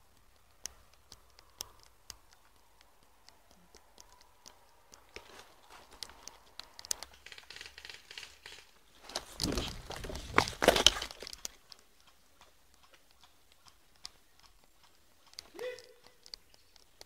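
Footsteps crunching on a gritty path, with clothing and gear rustling against the camera and many small scattered clicks. Near the middle comes a louder rustle lasting about two seconds.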